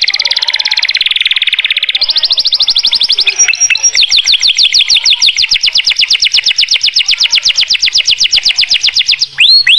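Domestic canary singing in fast rolling trills: rapid repeated notes, then from about four seconds in a quick run of falling whistled notes, slowing to longer downward slurs near the end.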